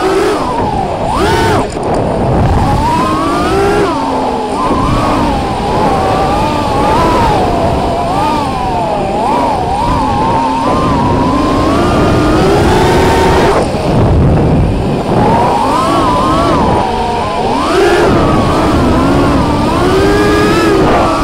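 A 5-inch FPV racing quadcopter's four Emax 2205 brushless motors and props buzzing, heard from onboard, the pitch rising and falling continuously as the throttle changes through fast low turns, over steady wind rush on the microphone.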